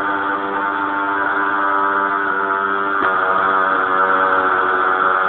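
Motorised insecticide sprayer running steadily with an even, loud buzzing drone; its pitch shifts slightly about three seconds in.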